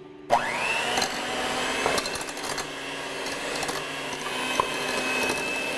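Electric hand mixer switched on about a third of a second in, its motor whine rising quickly and then running steadily as the wire beaters beat an egg into stiff choux pastry dough in a stainless steel saucepan, with a few sharp clicks along the way.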